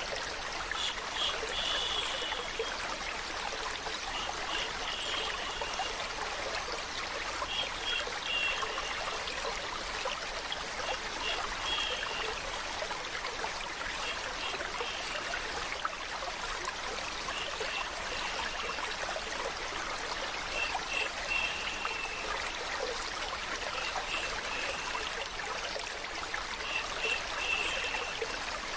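Steady running water, like a small stream trickling, blended with a continuous shushing hiss for lulling a baby to sleep. Short, bright, chirp-like notes recur about every two to three seconds over the even rush.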